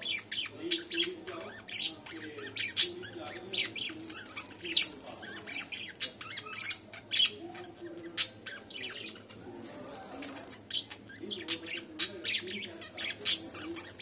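Pet budgerigars and finches calling together: a dense run of short, sharp chirps and squawks, several a second, over a softer chatter.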